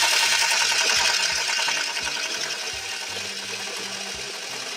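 Toy blender running with a continuous whirring buzz while its button is held down, gradually getting quieter toward the end.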